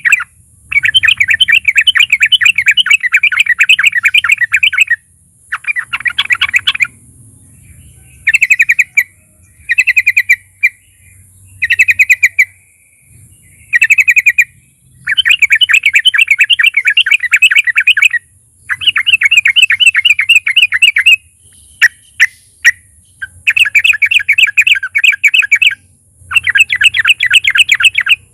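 Yellow-vented bulbul (trucukan) singing in rapid chattering runs of quick repeated notes, some lasting several seconds and some short, broken by brief pauses.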